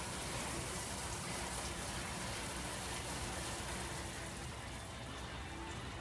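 Hobart LXIH high-temp undercounter dishwasher running its cycle: a steady, rain-like hiss of water spraying inside the closed cabinet. The hiss thins out a little near the end.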